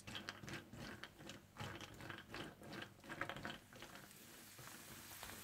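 Cashews frying in hot desi ghee, crackling quietly in quick, irregular clicks that thin out after about four seconds.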